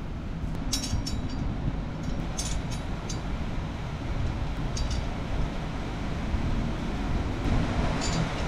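A few short, light metallic clinks of screws and a hand tool as a brake disc is screwed onto a motorcycle wheel hub, over a steady low background noise.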